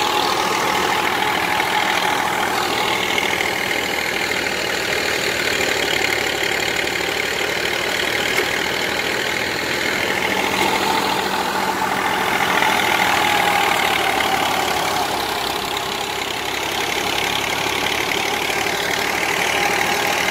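Tractor-driven wheat thresher running steadily, the tractor engine turning the threshing drum through its PTO shaft as sheaves are fed in. A dense, continuous machine hum whose pitch dips slightly and recovers now and then.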